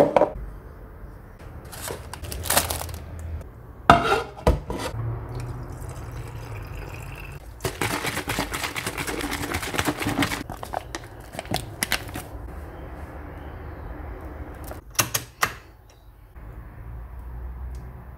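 Kitchen handling sounds: a glass jar and bottles knocked down on a counter, then a plastic pancake shaker bottle shaken hard for about two and a half seconds, its batter sloshing and rattling. Near the end, batter pours into a frying pan, over a steady low hum.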